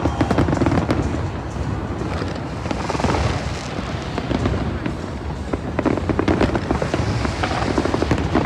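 Fireworks going off: a rapid, irregular run of bangs and crackles, with music and crowd voices underneath.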